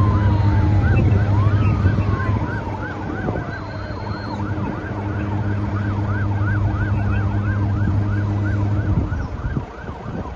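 Emergency vehicle siren sounding in a rapid rise-and-fall wail, about three cycles a second, over a steady low engine drone from the fire trucks. Two long falling tones pass in the first few seconds, and the drone stops about nine seconds in.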